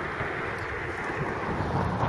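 Wind buffeting the microphone, with the low rumble of an idling diesel locomotive underneath.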